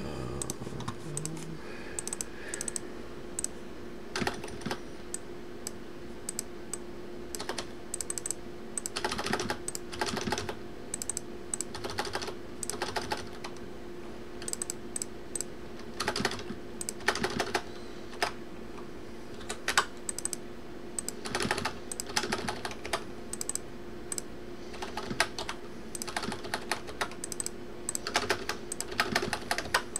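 Typing on a computer keyboard in irregular bursts of quick key clicks, over a steady faint hum.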